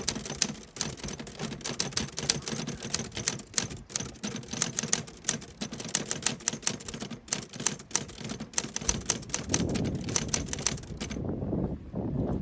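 Typewriter sound effect: rapid key clacks that stop suddenly about a second before the end. Beneath it, low wind noise on the microphone comes up near the end.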